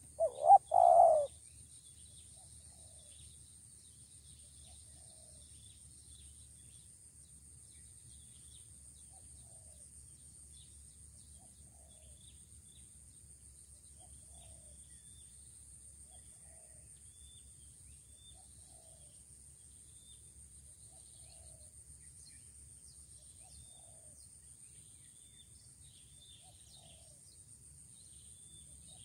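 Spotted dove cooing: one loud, short three-part coo about a second in. After it, faint coos repeat about every second and a half over a steady high insect drone and scattered faint chirps.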